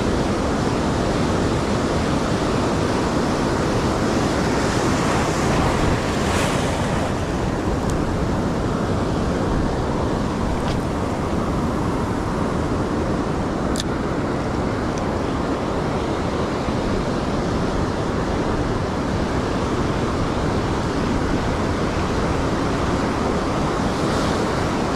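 Ocean surf washing onto a sandy beach in a steady, continuous rush, with wind blowing on the microphone.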